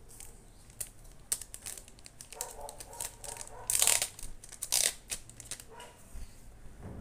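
Foil booster pack wrapper crinkling and rustling as it is pulled open and the cards are slid out, with a few small clicks and two louder crinkles about four and five seconds in.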